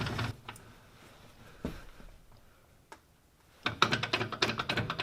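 Quick, irregular metallic clicking and rattling from a lathe saddle being cranked along the bed by its handwheel. Two single clicks come first, and the fast clicking starts about three and a half seconds in.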